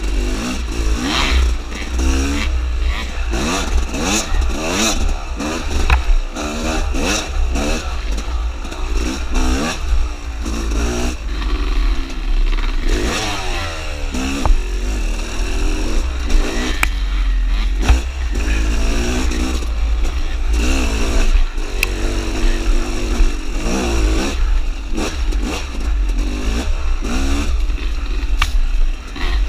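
Dirt bike engine revving up and down again and again as the throttle is worked along a tight trail. A steady low rumble runs underneath, with a few sharp knocks.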